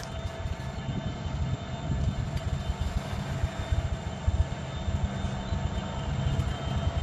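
Diesel locomotive running during yard switching: a steady low rumble with a faint constant whine above it.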